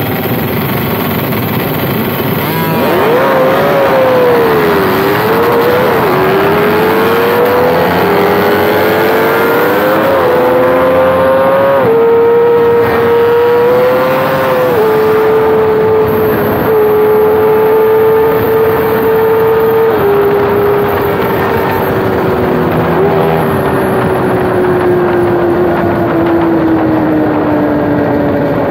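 Kawasaki ZX-25R's 250 cc four-cylinder engine revving hard under acceleration. It climbs in pitch and drops back at each upshift through several gears, then holds a steady high note. Over the last few seconds it slowly winds down as the throttle eases.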